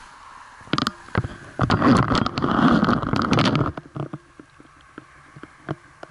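Close-up rustling and scraping handling noise on a helmet camera as a skydiver moves about beside the collapsed parachute canopy, loudest for about two seconds near the start, followed by scattered light clicks and rustles.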